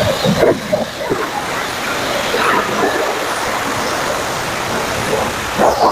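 Steady rush of water spray at a car wash.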